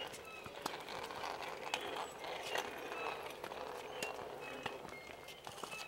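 Tennis balls struck by rackets and bouncing on a hard court: sharp pops every second or so, the loudest about two seconds in, with scattered brief high squeaks.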